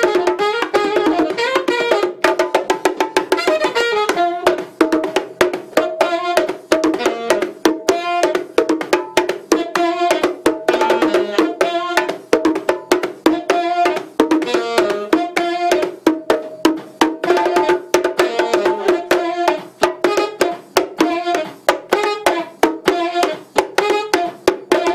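Bongos played by hand in a quick, continuous rhythm, with a saxophone playing a melody over them.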